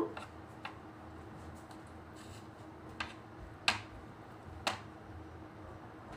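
A knife scraping and tapping against a plate as sauce is spread on bread slices: a handful of short, scattered light clicks over a faint steady hum.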